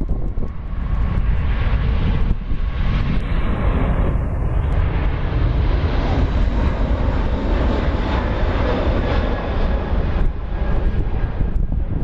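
Airbus A380's four jet engines at high thrust during a go-around, a loud, steady rumble as the airliner climbs away.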